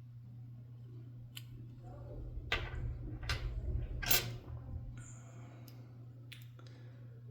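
Small metal clicks and scraping from handling a disassembled lock cylinder and its pins with tools, a handful of separate clicks with the sharpest about four seconds in, over a steady low hum.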